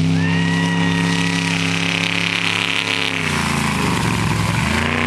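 Off-road race truck's engine running hard as it passes close by. The engine note holds steady, drops in pitch about three seconds in, then climbs back up near the end.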